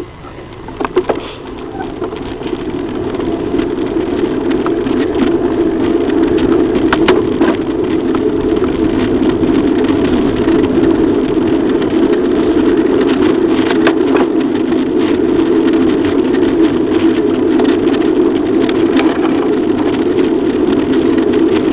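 Wind and tyre noise of a moving bicycle, building over the first few seconds as it gathers speed and then holding steady, with scattered clicks and rattles.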